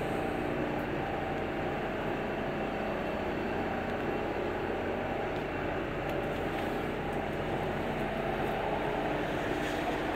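A steady engine drone.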